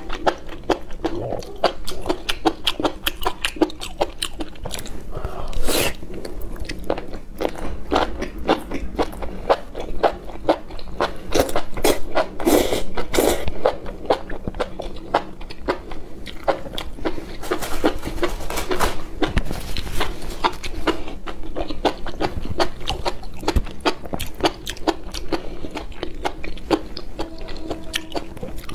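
Close-miked eating of enoki mushrooms in chili sauce: rapid wet slurping, biting and chewing, a dense run of crunchy, smacking clicks.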